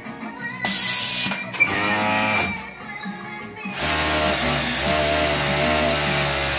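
Industrial cylinder-bed coverstitch machine running steadily from about four seconds in, stitching a hem in knit fabric, over background music.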